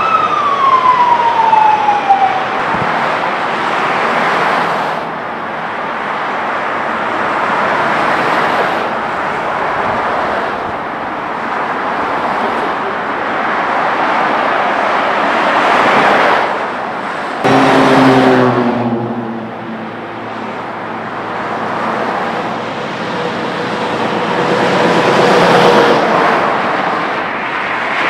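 Freeway traffic noise, with vehicles swelling and fading as they pass. A siren winds down with a falling pitch in the first two seconds, and a lower engine hum starts suddenly a little past the middle.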